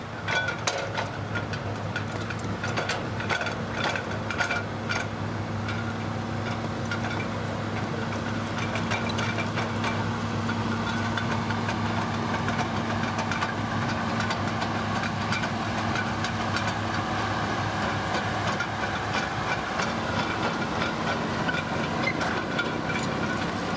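Hitachi Zaxis crawler excavator's diesel engine running steadily under working load, with a steady higher whine over its low hum. There are scattered clicks and knocks during the first few seconds.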